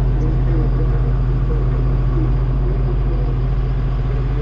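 Farm diesel engine running at a steady speed, a low, even drone.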